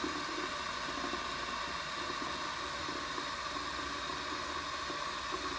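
Steady hiss of background noise, even throughout, with no distinct event.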